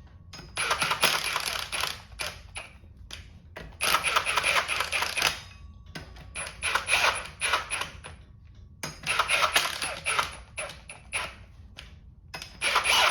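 Cordless impact gun running ARP flywheel bolts down onto the crankshaft flange in about five short bursts of rapid hammering rattle with a high motor whine, only snugging the bolts.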